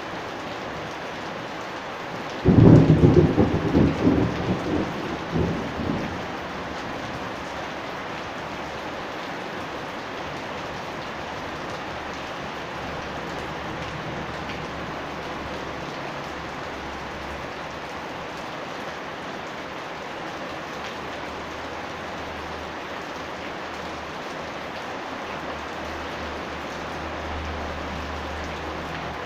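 Steady rain falling on the yard, with a sudden loud thunderclap about two and a half seconds in that crackles and rumbles away over some three seconds. A faint low rumble follows later on.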